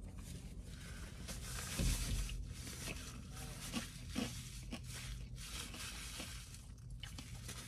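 A person chewing a mouthful of cheeseburger topped with crunchy corn tortilla bites, with small soft crunches and clicks. A dull thump comes about two seconds in.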